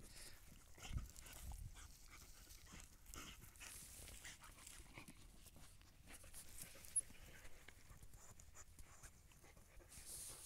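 Siberian husky digging in loose field soil after a mouse, its front paws making a run of faint scrapes and scratches, with the dog panting.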